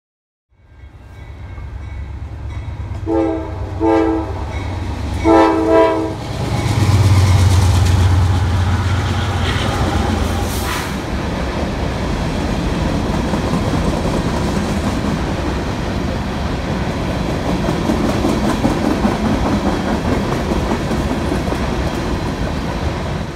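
A freight train passing close by, led by Norfolk Southern and BNSF diesel locomotives. The lead locomotive's air horn sounds four short blasts a few seconds in, and the locomotives' diesel engines drone as they go past. Then a long string of covered hopper cars rolls by with steady wheel-on-rail clatter.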